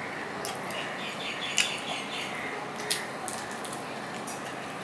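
Fingers picking apart fried fish and rice on a stainless steel plate, with a few soft clicks and wet squishes over a steady background hiss. A sharper tick comes about a second and a half in and another near three seconds.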